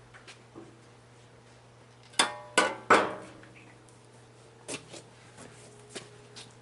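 Metal tools or parts knocking together: three sharp clanks with a short ring, close together about two seconds in, then a few lighter clicks.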